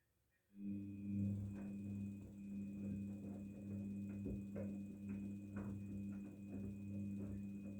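Daewoo DWD-FT1013 washing machine starting up again after a pause: a steady electric hum with a faint high whine begins about half a second in and holds, with scattered light clicks and knocks over it.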